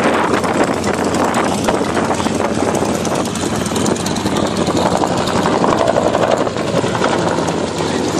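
Bell UH-1 'Huey' helicopter in flight, its two-blade main rotor beating the air with a steady, loud sound.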